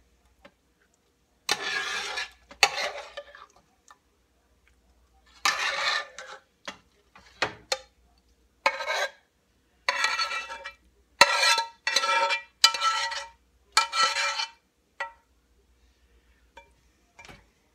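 A metal spoon scraping a skillet in a run of about ten short strokes, scooping out the last of a ground beef mixture.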